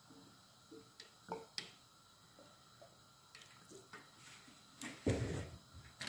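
Faint scattered clicks and drips as olive oil is drizzled from a metal oil can over boiled artichokes on a wooden board, then a louder knock about five seconds in as the can is set down.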